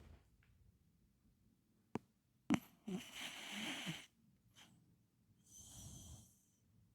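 Small dog snoring: a sharp click about two seconds in, then a rough, wheezy snore lasting about a second, and a second, hissier breath near the end.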